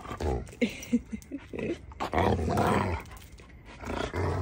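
Two dogs play-fighting, growling and snarling in rough bursts, with longer growls about two seconds in and near the end.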